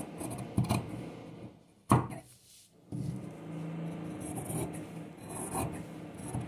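Large tailoring scissors cutting through cloth with fused interfacing along a neckline, in a series of irregular crunchy snips. A sharp snap about two seconds in is the loudest sound, followed by a short pause before the cutting resumes.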